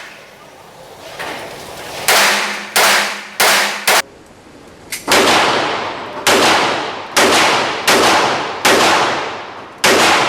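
A string of about ten gunshots at a shooting range, fired one at a time at an uneven pace of roughly one shot a second. Each crack trails off over about half a second.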